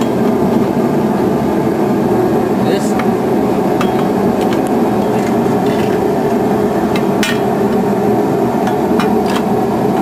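A loud, steady drone throughout, with scattered light metallic clicks and clinks of hand tools against engine parts.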